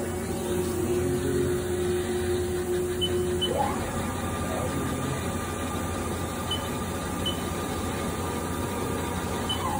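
Haas ST-20 CNC lathe spindle running under a steady machine hum. Its motor whine rises in pitch about three and a half seconds in as the spindle speeds up, holds steady, then falls near the end as it slows down.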